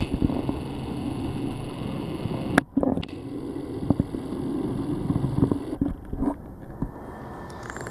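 A portable air-conditioner unit running with a steady hum, with scattered light knocks; the hum drops away about six seconds in.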